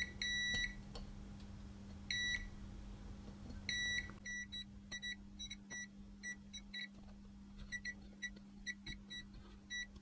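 A multimeter's continuity beeper sounding as the probe is touched across capacitors on the radio's circuit board, checking them for a short to ground. There are a few half-second beeps in the first four seconds, then a quick string of short chirps, about two or three a second.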